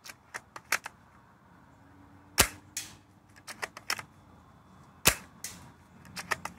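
Tokyo Marui VSR-10 Pro Hunter spring-powered bolt-action airsoft rifle firing two shots about two and a half seconds apart, each a sharp crack of the heavy piston releasing. Clusters of quieter metallic clicks come between and around the shots as the bolt is worked to cock and chamber the next BB.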